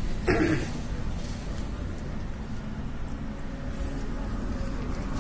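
Steady low background rumble of outdoor noise, with one short, loud, sharp sound about a third of a second in.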